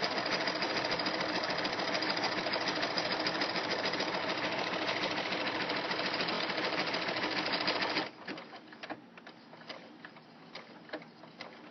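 Baby Lock Ellure Plus sewing machine stitching steadily at a fast, even rate while sewing elastic onto fabric. It stops about eight seconds in, leaving only faint clicks and handling noise.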